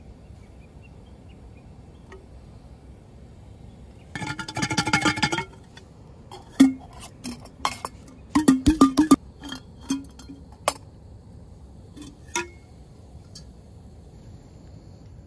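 Ice cubes clinking in a glass of iced tea: a quick rattle of clinks lasting about a second and a half, then a run of scattered single clinks.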